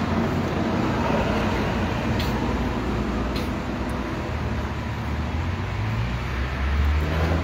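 Steady traffic noise with a low vehicle rumble that grows louder near the end, as of a vehicle passing close by.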